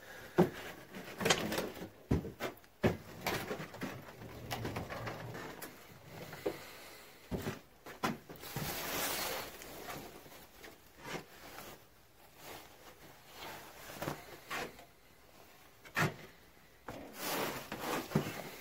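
Handling noises: scattered knocks and clicks, with a stretch of rustling about eight to ten seconds in.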